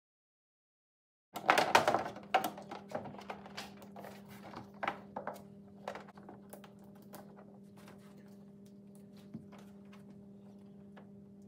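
Handling a flexible LED light strip against the plastic back of a TV. After a second or so of silence comes a burst of clicks and rustles, loudest at the start, then scattered light taps that thin out over a faint steady hum.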